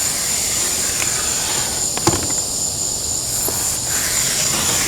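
Crickets trilling steadily in one continuous high note, with a single sharp click about two seconds in.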